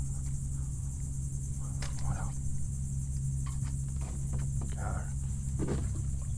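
A steady high-pitched insect trill carries on throughout over a low steady rumble, with a few short, faint noises around two seconds and again around five to six seconds in.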